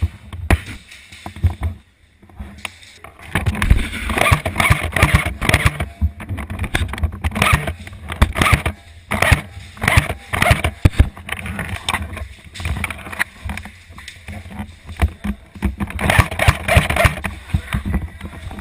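Irregular knocks, clicks and rattles from an Echo1 P90 airsoft gun carrying a camera, heard from the gun itself as it is handled and moved. The clatter comes in busy stretches, thickest from about three seconds in to well past the middle and again near the end.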